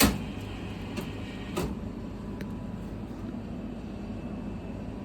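Steady mechanical hum of a food vending machine, with a sharp knock at the start and a lighter knock about a second and a half in.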